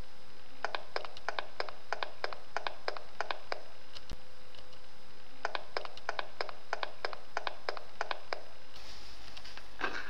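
Two runs of quick, light clicks, about four or five a second, each lasting about three seconds with a pause between, over a low steady hum. A short burst of noise comes just before the end.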